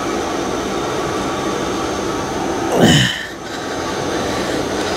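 Steady fan-like rushing noise, with one short sound falling in pitch about three seconds in.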